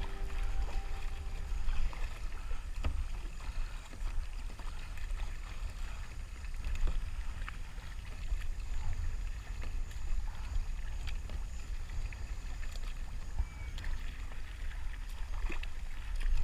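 A plastic sit-on-top kayak being paddled: water lapping and splashing at the bow, with small clicks and drips, over a steady low rumble of wind on the microphone.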